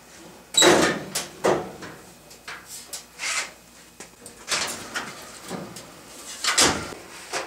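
Sheet-metal top panel of an electric clothes dryer being popped loose and raised open: a loud metal clunk about half a second in, then several more knocks and scrapes as it lifts.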